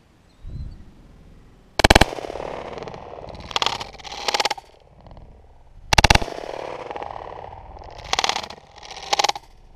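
Two close shotgun shots about four seconds apart, each followed by a long fading echo. Several shorter, quieter bursts of sound come between and after them.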